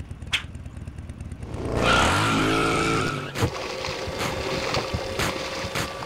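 Cartoon motorcycle engine running, then revving up loudly with rising pitch as it pulls away, about two seconds in. After a sudden cut, a steady hum with a few clicks.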